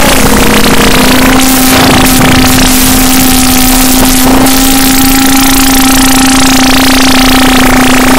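Noise music: a loud, dense wall of distorted noise over a steady low drone, with fainter held tones above it.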